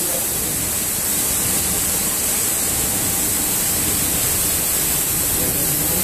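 Automatic carpet washing machine running with its conveyor belt moving: a loud, steady hiss with no rhythm or change.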